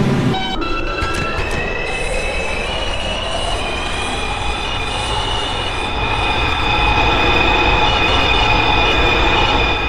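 New York City 5 subway train pulling away from a station: the traction motors' whine rises steadily in pitch for the first few seconds, then holds as several steady high tones over the low running rumble of the wheels on the rails.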